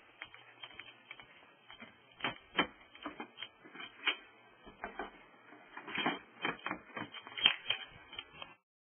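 An irregular series of sharp clicks and taps, some much louder than others, that stops suddenly near the end.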